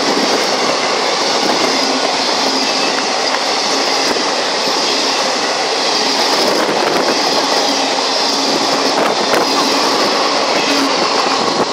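Passenger coaches of an express train passing close by at speed: a loud, steady rush of wheels on rail with a few sharp clicks.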